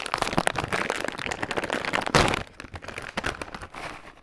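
A foil-lined Qtela tempeh chip bag being pulled open by hand: dense crinkling and rustling, with a loud pop as the seal gives way about two seconds in, then more crinkling as the bag is handled.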